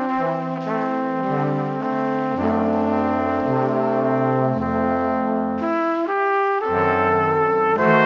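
Background music: slow, held chords over a bass line that moves about once a second.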